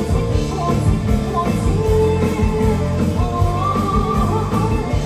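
Live band music played loud through a concert PA, with a singer's voice carrying a wavering melody over the band.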